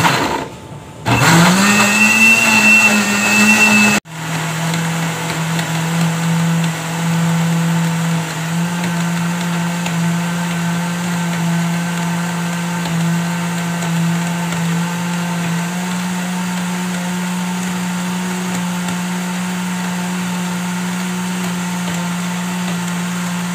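Electric countertop blender switched on, its motor whining up to speed about a second in, cutting out briefly near four seconds, then running steadily as it purees a thick spice paste in cooking oil. Its pitch steps up a little about two-thirds of the way through.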